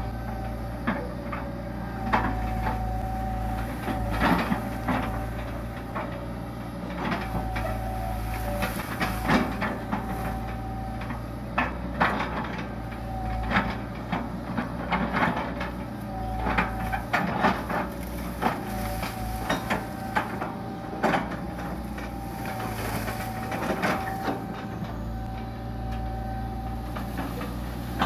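Hitachi EX120 long-arm excavator's diesel engine running steadily, with a whining tone that rises and drops out as the boom and bucket move. Irregular cracks, snaps and knocks come throughout as the bucket breaks and drags down banana plants.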